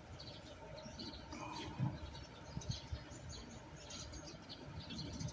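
Faint birds chirping in short scattered notes, with a couple of soft low knocks about two and three seconds in.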